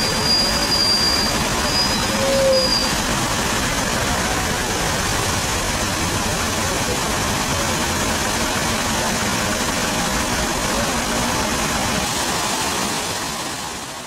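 Water from a large fountain's jets and cascade splashing into its basin: a steady rush of falling water that fades out at the very end.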